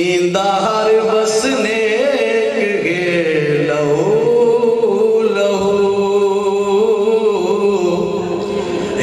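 A man reciting a Punjabi poem in a sung, chanting melody, drawing out long held notes.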